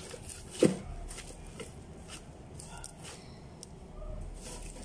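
Paper and cardboard cut-outs on sticks rustling and clicking as they are handled and sorted into holders. About half a second in comes one short, loud cry that falls in pitch.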